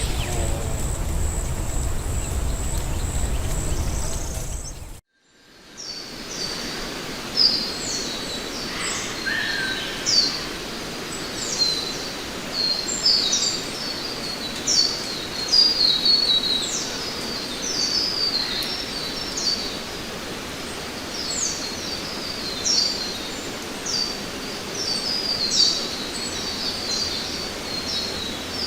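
Forest ambience. For the first five seconds a steady, high insect drone runs over a low rumble; then the sound drops out briefly. From about six seconds in, birds chirp over a steady hiss, with many short, high calls that sweep downward.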